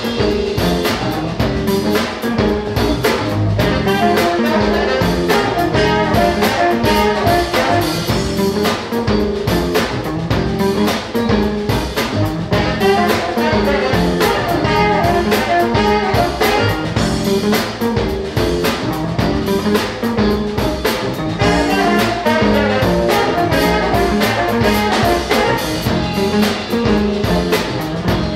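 Live funk band playing an instrumental: saxophone and trombone carrying the horn lines over electric guitar, bass guitar and drum kit, with a steady beat.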